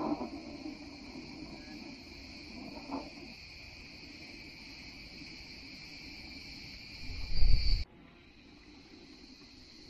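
Steady, high-pitched chorus of crickets. About seven seconds in, a brief loud low rumble stops abruptly, and with it part of the insect sound.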